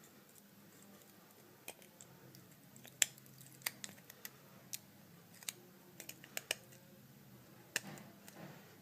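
Faint, irregular small clicks and taps of a replacement phone digitizer and its plastic frame being handled and pressed into place, about a dozen in all, the sharpest about three seconds in.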